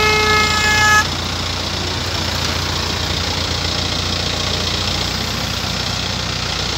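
Case backhoe loader's diesel engine running steadily. A horn is held for about the first second and cuts off abruptly.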